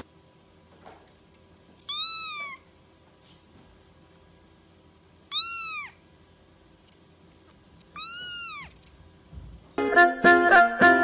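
Kitten meowing three times, high thin calls a few seconds apart, each rising and then falling in pitch. Music starts near the end.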